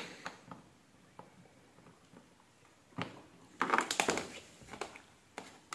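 Small plastic clicks, then a scraping rustle about three and a half seconds in and a few more clicks near the end: a charger plug being worked into the charging socket of a kids' electric motorbike, with multimeter test leads handled.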